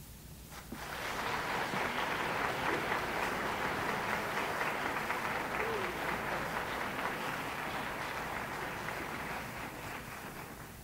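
Audience applauding after a band's final chord: dense clapping that starts about a second in and tapers off slightly near the end.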